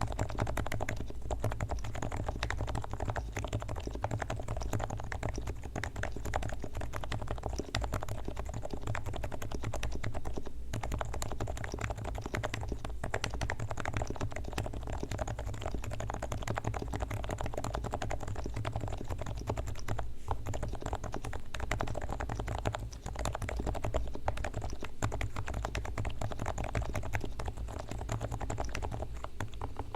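Continuous fast typing on a Leopold FC660C silent Topre electrostatic capacitive keyboard with 45 g switches, fully lubricated with Krytox on the sliders and springs and its stabilizers straightened and greased.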